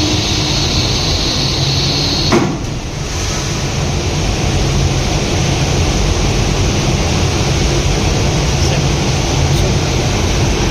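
Steady running noise of machinery with a low hum. About two and a half seconds in, a single sharp click, likely the switch under test being operated, cuts off a high whine, and the level dips briefly before the steady noise carries on.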